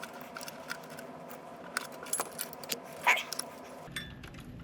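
Scattered small clicks and light metallic rattles from hands and tools working on a power supply's chassis during teardown, over a faint steady hum that stops near the end.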